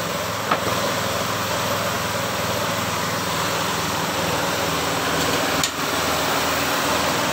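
Homemade sawmill's engine running steadily, with a couple of brief clicks.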